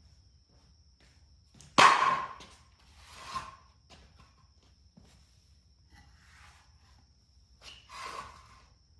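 A sharp, loud knock about two seconds in, then two softer knocks, one a second later and one near the end, with a cricket's steady high chirr going on throughout.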